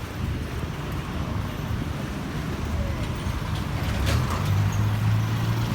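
Road traffic: a motor vehicle's engine running close by, with a steady low hum that sets in about four seconds in over a background rumble.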